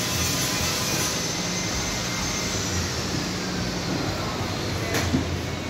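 Steady loud background rumble, with a single sharp knock about five seconds in as the plastic roof box is set down on the roof-rack crossbars.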